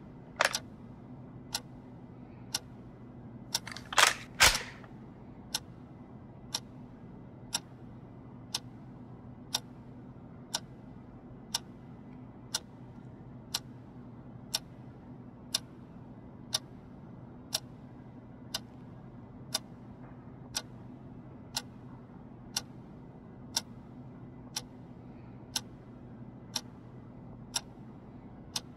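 Clock ticking once a second over a low steady hum, with louder knocks just after the start and two more about four seconds in.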